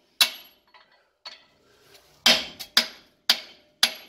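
A hand hammer striking a chisel held against a welded leaf-spring perch on a truck's steel rear axle tube. There are about six sharp metal-on-metal strikes with a brief ring, one lighter about a second in, to break the perch free of the axle.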